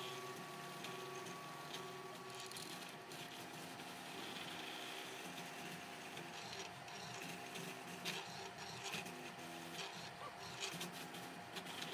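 A 3D printer's stepper motors whine faintly in several tones that shift pitch every fraction of a second as the print head traces the layers of a print. A few light clicks come in the second half.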